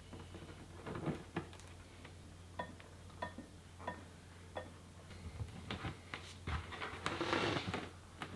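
Hands working a clear plastic beer-keg shell: a few knocks about a second in, then four evenly spaced ringing taps on the thin plastic, about two-thirds of a second apart. Near the end come rustling and scraping as the shell is shifted and tipped onto its side.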